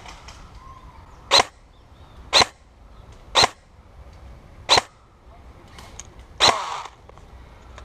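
Airsoft gun firing single shots: five sharp cracks spaced about a second or so apart, the last followed by a brief rougher noise.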